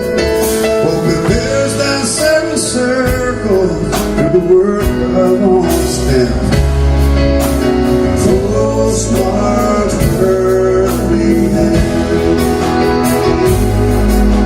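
Live country band music: a male voice singing over the band, with guitar and a steady beat.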